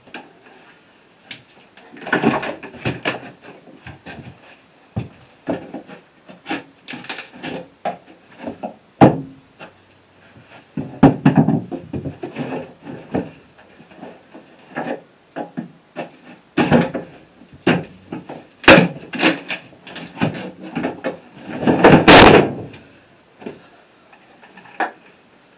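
Irregular knocks, clunks and scrapes as heavy leisure batteries are unhooked and lifted out of a wooden battery box and the box is shifted, with a louder clatter lasting about a second near the end.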